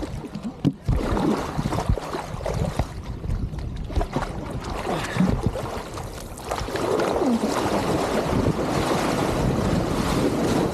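Water sloshing and splashing around an electric hydrofoil (eFoil) board as it moves off from the dock, with a few knocks in the first seconds. From about six and a half seconds in it becomes a steady, louder rush of spray and wind on the microphone as the board speeds up.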